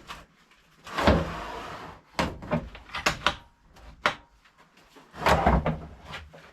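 A heavy lathe being shifted on a table by hand. About a second in there is a scraping slide lasting about a second, then a run of knocks and bumps, with a louder scrape and thud near the end.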